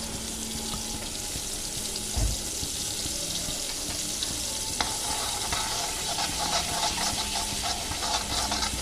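Butter and a little oil sizzling and crackling steadily in a hot pan, with a single low knock about two seconds in.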